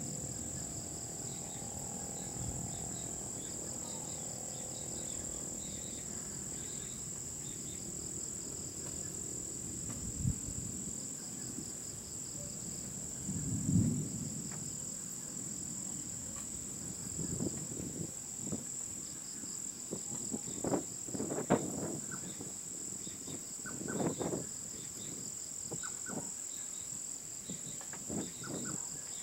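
Steady high-pitched chorus of night insects, crickets chirring, with a pulsing trill just beneath it. From about halfway through, faint short low sounds and a few sharp knocks come and go over it.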